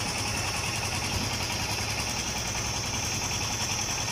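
Small farm-machine diesel engine idling steadily.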